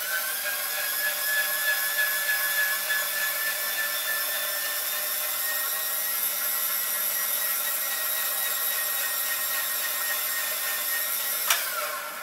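Irvan-Smith electric bead roller running steadily as step mandrels roll a step into the edge of a 0.040 aluminum sheet: a steady motor whine that rises as it starts and sinks away at the end. A single sharp click comes near the end, just before the motor winds down.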